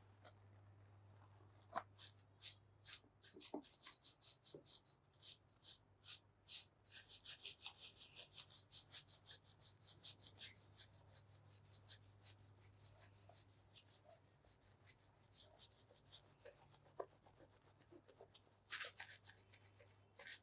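Fingers scrubbing a shampoo-lathered scalp: faint quick scratching strokes, several a second, over a low steady hum.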